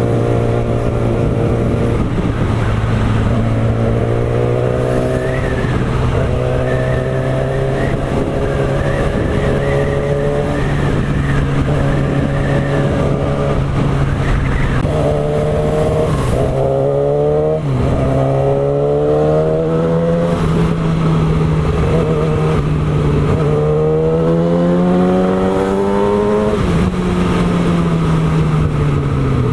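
Yamaha R6's inline-four engine breathing through an Akrapovič full-system exhaust while riding. It runs steadily and revs up again and again, its pitch climbing in several runs, most steeply about 15 and 24 seconds in, then dropping back near the end.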